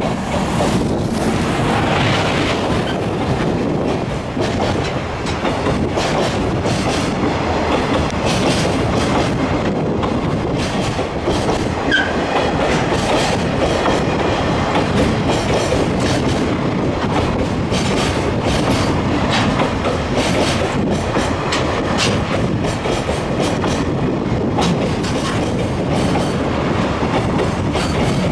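Train running along the track, a steady rumble with the wheels clicking over rail joints. There is a short high-pitched squeak about twelve seconds in.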